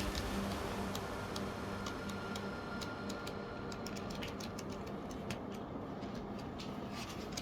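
Primo PRDH-45003 dehumidifier running: a steady even whir with scattered faint irregular ticks.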